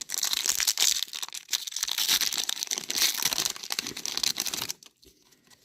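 Foil Pokémon booster pack wrapper being torn open and crinkled in the hands, a dense crackling rustle that stops about a second before the end.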